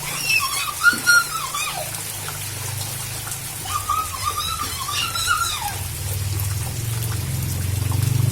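Rain falling steadily, with a high wavering cry rising over it twice, near the start and about halfway through. A low hum underneath swells toward the end.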